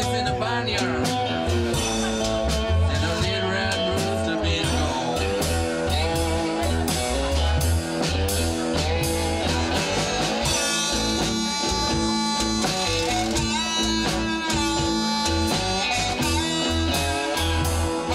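Live blues band playing a slow instrumental passage: amplified harmonica played into a bullet microphone over cigar box guitars and drums.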